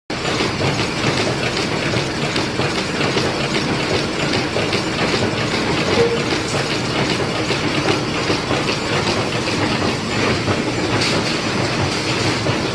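Automatic box folder-gluer machine running at speed: a steady, dense clatter of belts and rollers as printed carton blanks feed through the gluing and folding sections.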